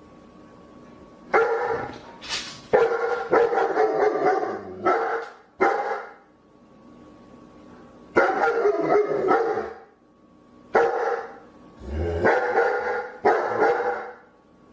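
A dog barking repeatedly, in quick runs of several barks with pauses of a second or two between the runs.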